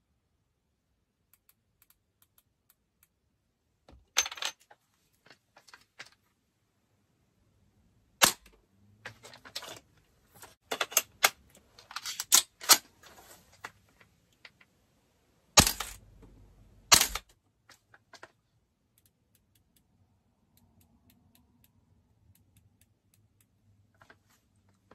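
Irregular sharp clicks and snaps, the loudest a few single hard cracks in the middle: an airsoft gun being fired and handled while a red-dot sight is zeroed at close range.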